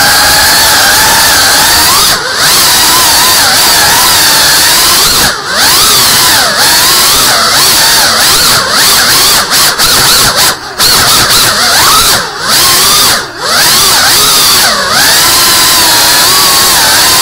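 GEPRC CineLog cinewhoop FPV drone in flight, heard from its onboard camera: the brushless motors and ducted propellers whine loudly, the pitch sliding up and down with the throttle. There are several brief drops in level along the way.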